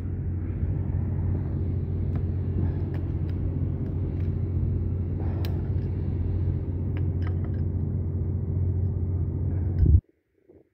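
Steady low mechanical drone, like an engine or motor running, with a few faint clicks over it; it cuts off abruptly near the end.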